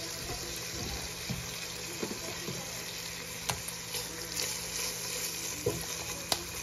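Chopped bacon sizzling in a pot on the stove as it is stirred with a silicone spatula, with soft knocks of the stirring and a couple of sharp clicks.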